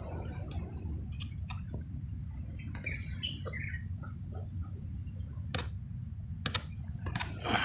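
Steady low wind rumble on the microphone, with scattered sharp clicks and a few short bird chirps about three seconds in.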